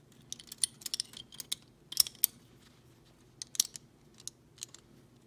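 Small metal clicks and light scraping as the Kimber Micro 9's recoil spring and guide rod are worked into the steel slide by hand: irregular sharp clicks in small clusters, the loudest about two seconds in.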